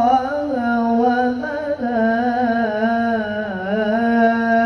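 Melodic Quran recitation (tilawah): a qori's single voice draws out the word 'Allah' in one long ornamented note, the pitch wavering and bending slowly, dipping a little in the second half before settling again.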